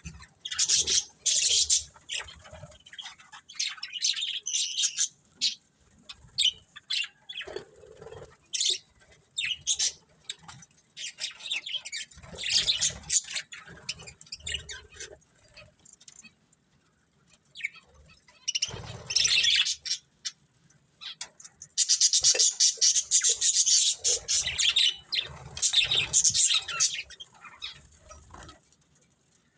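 Budgerigars chirping and chattering in short bursts, with a longer stretch of dense, continuous chatter past the middle.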